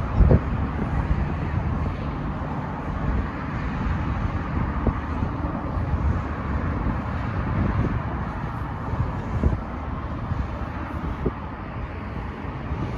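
Airbus A330's jet engines as a steady low rumble during its takeoff, with wind buffeting the microphone and a few brief thumps.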